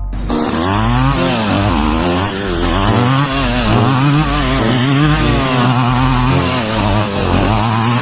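A small engine running hard, its pitch rising and falling over and over as it revs, with a steady hiss over it.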